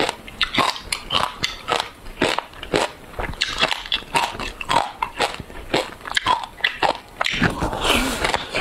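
Close-miked crunching of frozen ice coated in passion-fruit pulp and seeds, bitten and chewed. There are sharp cracks several times a second, and a denser, louder run of crunching near the end.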